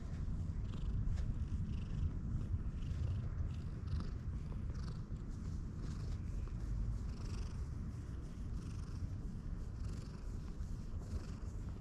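Cat purring steadily, a continuous low rumble, while it is stroked on the head and chin.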